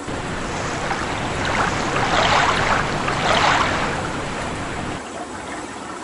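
Sea water sound effect: waves washing and splashing, swelling to their loudest in the middle and easing off near the end.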